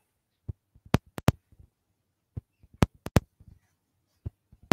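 A string of light, sharp taps and clicks, unevenly spaced and some in quick pairs, with near silence between them.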